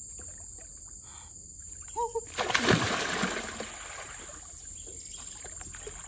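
Water splashing loudly about two and a half seconds in, for about a second, as a person wading in a stream drops down into the water. A steady high-pitched insect buzz runs underneath.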